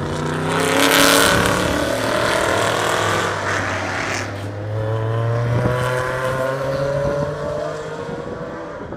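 Race car engine passing close on the track, loudest about a second in, then climbing in pitch as it accelerates away and fades.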